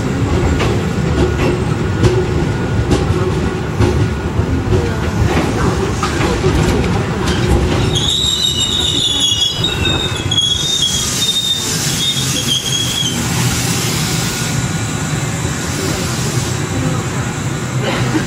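Tobu 6050 series electric train rolling slowly into a station platform, wheels rumbling and clicking over rail joints. About halfway through, the wheels squeal in high, wavering tones for several seconds, as they do on the sharp curve into Asakusa station, followed by a steady hiss.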